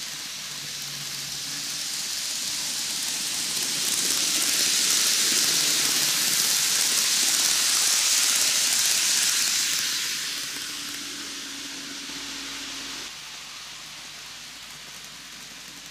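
N-gauge model train (Micro Ace Keikyu 2100 series, twelve cars) running past on canted track: the hiss of its wheels on the rails, with a faint motor hum, grows louder as it nears, is loudest midway, then fades as it runs away.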